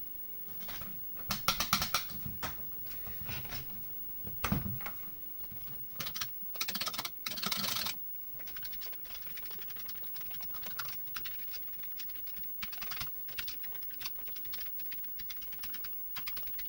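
Commodore 64 keyboard keys being pressed one after another in quick runs, a rattle of plastic key clicks, to check every key after a tester reported the keyboard bad. The presses come in dense bursts at first, then settle into a lighter, steadier clicking.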